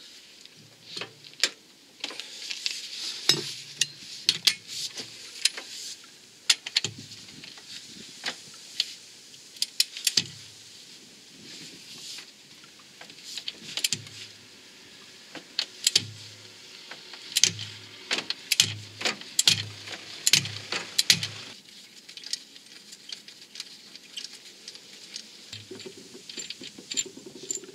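Ratchet wrench clicking in short runs, with metal clinks and light knocks, as the crankshaft pulley bolt is unscrewed.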